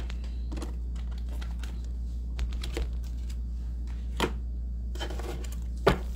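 Playing-size card deck being handled and shuffled over a wooden table: a handful of sharp taps and clicks as the cards and deck are knocked and set down, with some brief card rustle, the loudest tap near the end. A steady low hum runs underneath.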